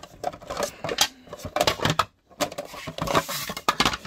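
Nested hollow plastic LEGO BYGGLEK storage boxes clattering and knocking against each other as they are shaken and slid out of their cardboard box, with the cardboard scraping.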